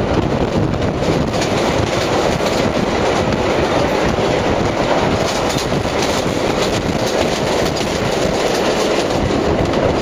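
Subway train running on an elevated line, heard from aboard: a steady rumble with the clickety-clack of wheels over the rail joints.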